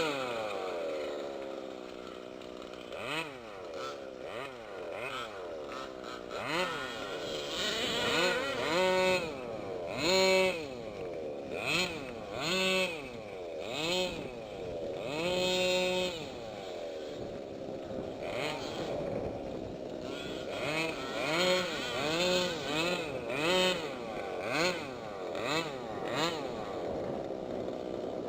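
Small two-stroke engine of a gas-powered 1/5-scale RC car revving up and down over and over as it is driven, the pitch climbing and dropping with each burst of throttle.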